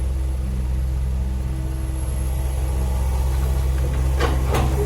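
Heavy diesel engine running steadily at a low, even pitch, with a few short, sharp sounds near the end.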